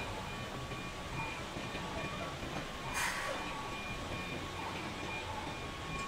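Heavy truck's diesel engine running at low speed with a steady low rumble as the tractor-trailer creeps forward, a repeating high-pitched beep over it. A short burst of hiss about three seconds in.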